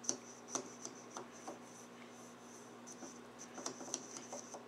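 Faint, scattered light clicks and taps of small metal parts being handled as the slow motor of a Leslie two-speed upper motor is pushed and spun, with a cluster of clicks near the end.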